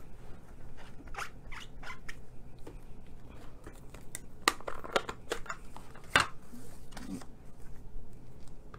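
Light handling noises of stamping supplies: scattered clicks and rustles as a plastic ink pad case is picked up and opened and cardstock pieces are slid across the mat. One sharper knock comes about six seconds in.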